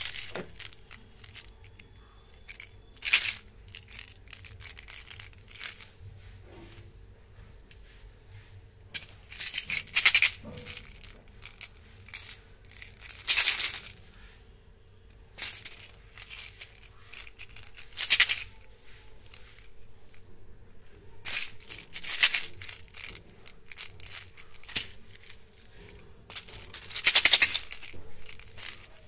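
Candy-coated chocolate beans rattling inside small plastic Mini Choco tubes as they are handled and shaken, in short bursts every few seconds, over a faint steady hum.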